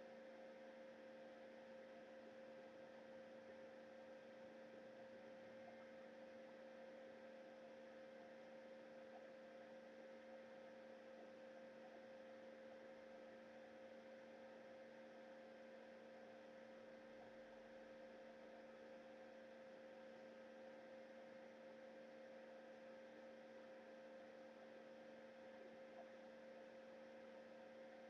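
Near silence: a faint, steady electrical hum of a few fixed tones over a light hiss, unchanging throughout.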